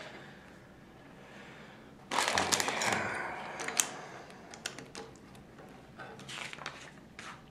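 LEGO plastic bricks being handled on a wooden table and pressed together. About two seconds in comes a burst of rustling and clattering as pieces are picked up, then scattered sharp clicks as plates are snapped on.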